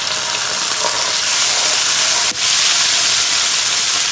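Ginger and garlic paste sizzling in hot oil with cumin seeds and cardamom: a loud, steady hiss with a brief break about two seconds in.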